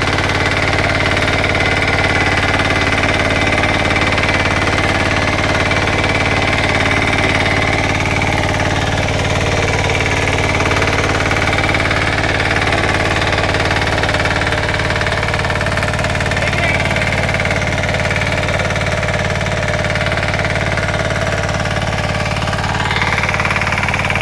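Kama 9 hp power weeder's single-cylinder diesel engine running steadily under load as its rotary tines till the soil.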